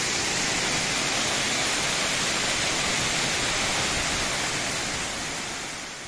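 Waterfall pouring down a rock face: a steady rush of falling water, fading out near the end.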